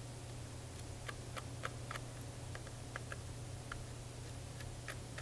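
Small screwdriver working the tiny outer housing screws out of a Canon Rebel DSLR's body: faint, irregular light clicks, over a low steady hum.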